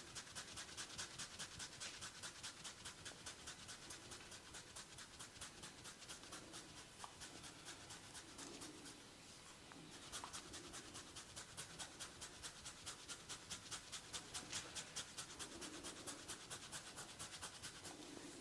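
Fingers scratching rapidly through hair on the scalp in a steady rhythm of crisp, fine strokes, about four or five a second, with a short pause about halfway through.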